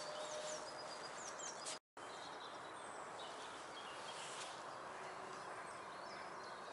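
Quiet lakeside morning ambience: a steady soft hiss with a few short, high bird chirps. The sound cuts out completely for a moment about two seconds in.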